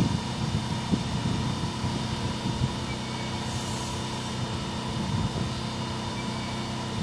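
Steady mechanical drone of a machine running, with a constant hum and no change in pitch.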